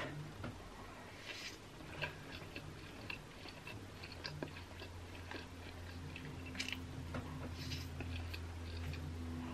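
Close-up mouth sounds of a person eating yakisoba stir-fried noodles: wet chewing clicks and smacks, with a few short slurps as mouthfuls of noodles are drawn in.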